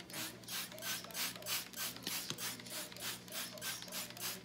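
Plastic trigger spray bottle pumped rapidly, about four hissing spritzes of water a second with the trigger clicking, misting water over unbaked baguette dough.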